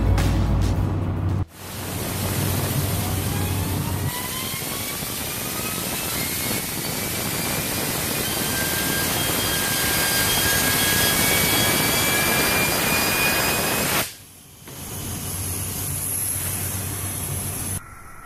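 A loud rushing hiss like a jet of air, starting and stopping abruptly, with several thin whistling tones slowly rising in pitch as the steel ball-bearing spinner is spun up to high speed.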